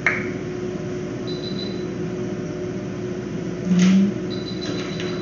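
Steady hum of running equipment with short, high electronic beeps every second or two. A sharp click comes at the start, and a brief, louder low buzz comes about four seconds in.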